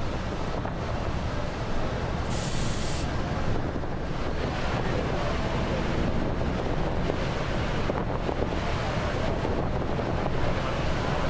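Wind buffeting the microphone over a steady low rumble and rushing water, the churning propeller wash of a large container ship moving into a canal lock. A short hiss comes about two seconds in.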